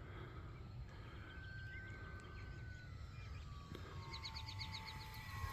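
Faint outdoor ambience with a low wind rumble, under a thin distant whine that slowly falls in pitch: the RC plane's electric motor. A quick run of high chirps about four seconds in, a bird.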